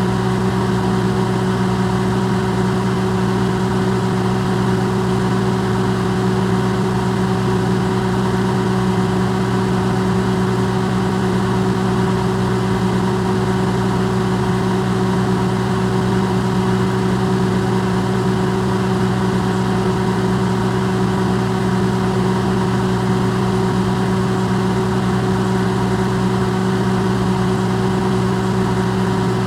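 Electrolux microwave oven running, recorded close and amplified: a steady, unbroken electrical hum with a low drone and a wash of fan-like noise.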